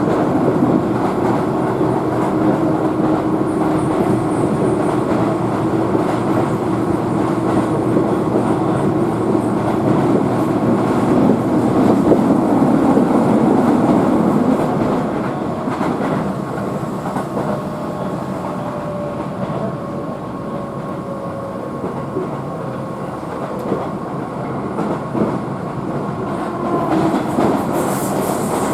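Running noise of a Keihan electric train at speed, heard inside the passenger car: a steady rumble of wheels on rail with a hum that fades about halfway through, after which the noise is a little quieter.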